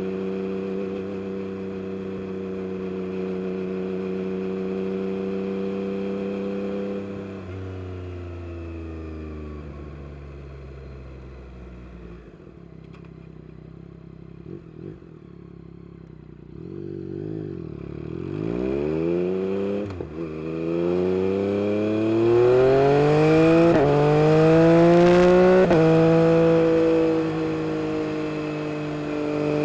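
A Yamaha MT-09 SP's three-cylinder engine through an Akrapovic carbon race exhaust while riding. It runs at a steady pitch, then drops off as the throttle closes and runs low and quieter for several seconds. In the second half it revs up hard with rising pitch, through two quick upshifts, and settles into a steady run near the end.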